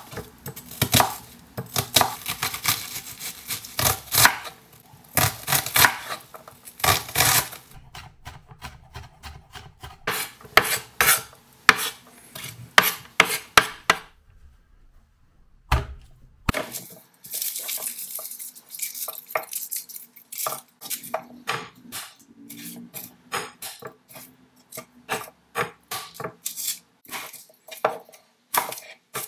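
Chef's knife chopping on a wooden chopping board in quick runs of strokes: dicing an onion, then chopping garlic cloves. There is a pause of about two seconds midway.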